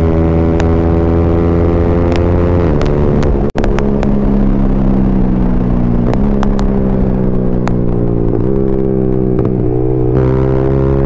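Yamaha R15M's 155 cc single-cylinder four-stroke engine running loud through a full-system Yoshimura exhaust. Its note holds steady, then eases down in pitch with a few brief dips in revs, and climbs again near the end.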